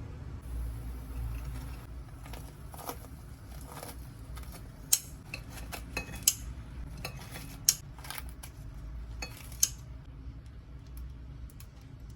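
Kitchenware and utensils clinking and clattering in a run of short, sharp knocks, four of them louder than the rest, over a steady low hum.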